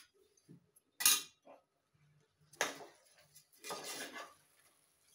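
Metal spoon clinking against a metal cooking pot and scraping through raw basmati rice as it is stirred into the vegetables, with a sharp clink about a second in and a longer scrape a little later.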